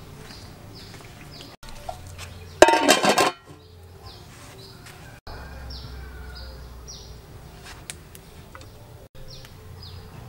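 Animal chirping: short high chirps repeating about twice a second, in runs. It is broken by one brief loud burst about two and a half seconds in.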